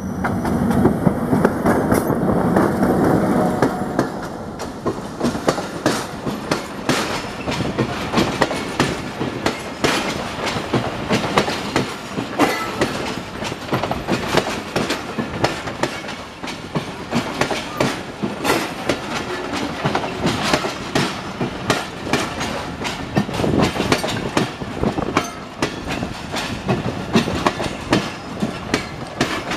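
Bangladesh Railway diesel locomotive 6510 passing close by at speed, its engine loudest in the first few seconds, then the passenger coaches rolling past with a fast, continuous clickety-clack of wheels over the rail joints.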